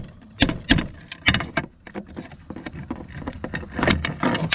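Hammer blows on a steel punch drive the pin out of a roller chain link, several sharp metallic strikes in the first second and a half. Then the chain links click and rattle as they are worked apart by hand on a steel plate.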